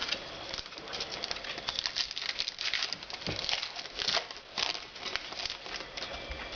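Trading cards being handled and flipped through, card stock flicking and sliding against card: an irregular run of light taps and flicks.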